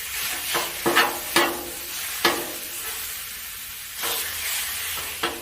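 Ground beef sizzling on a Blackstone flat-top griddle while a metal spatula chops and scrapes through it: a steady frying hiss with several sharp, briefly ringing clanks of the spatula on the steel, four in the first half and one near the end.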